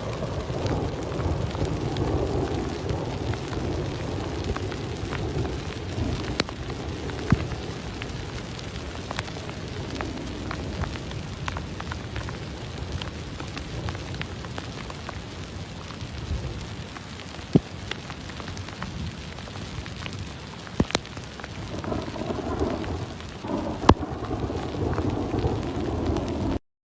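Rain falling steadily, a dense patter with scattered sharper drop hits and a low rumble underneath. It cuts off abruptly near the end.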